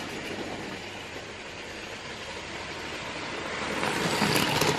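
Hornby OO gauge Terrier model locomotive running fast on its track with a goods train, its motor and wheels making a steady whirr that grows louder near the end as it passes close by, with a few sharp clicks.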